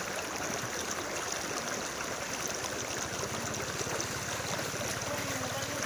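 Knee-deep floodwater sloshing steadily as people wade through it, pushing a motorcycle.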